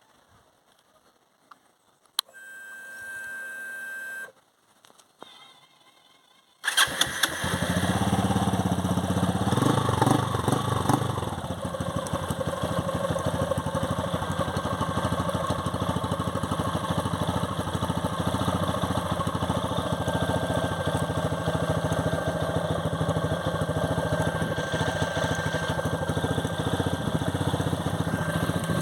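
A click, then a fuel-injected Honda motorcycle's fuel pump hums for about two seconds as the ignition is switched on. A few seconds later the single-cylinder engine starts, runs a little louder for a few seconds, then settles into a steady idle.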